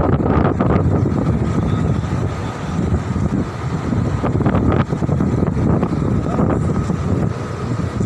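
Wind buffeting the microphone: a loud, uneven rumble with a faint steady high hum underneath. A few short clicks come about four and a half seconds in.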